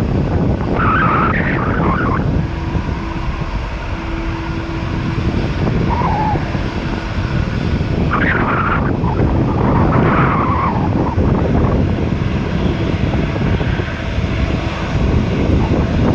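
Loud, steady rumble of jet airliner engine noise at a runway, mixed with wind buffeting the microphone.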